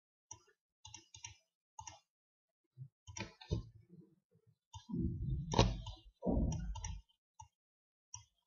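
Computer mouse clicking: a few scattered single clicks, then a louder, busier run of clicks and thuds about five seconds in.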